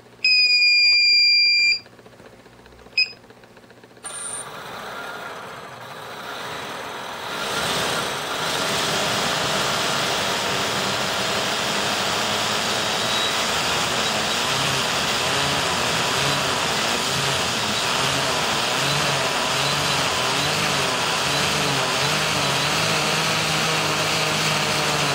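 A loud electronic beep for about a second and a half, then a few seconds later the brushless motors of a carbon-fibre quadcopter, propellers off, spin up over several seconds and run on with a steady whir. The run is pretty smooth, the sign that the motor bearings are in good shape.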